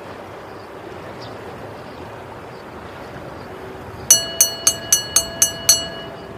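Subscribe-button bell sound effect: a small bell rung seven times in quick succession, about four strikes a second, starting about four seconds in. Before it, a steady rushing background of pool water.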